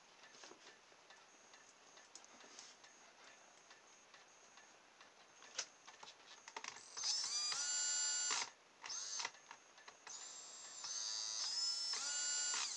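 Small DC motor, which the owner takes for a hairdryer motor, run from an old cordless drill's battery through the drill's variable-speed trigger and whining as it spins. Faint handling clicks come first. About seven seconds in, the motor spins up with a rising whine, runs briefly and cuts off. It gives a short burst, then runs again, stepping up in pitch as the trigger is squeezed harder.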